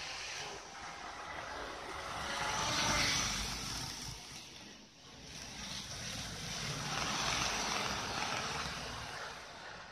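Model trains running on the layout: a steady motor whir and wheel rumble on the track that swells as a train passes close, loudest about three seconds in and again around seven to eight seconds, with a brief dip between.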